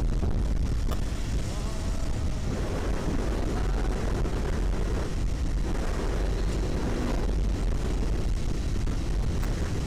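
Honda CBR150R's single-cylinder engine running steadily as the motorcycle cruises, under a constant low rumble of wind over the microphone.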